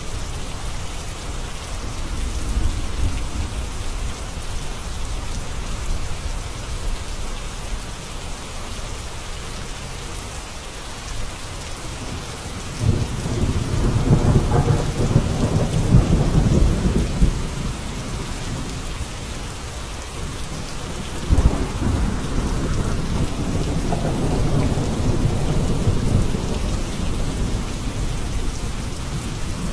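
Steady rain with rolling thunder: a long low rumble swells a little before halfway, and a second starts with a sharp crack about two-thirds of the way through and rolls on for several seconds.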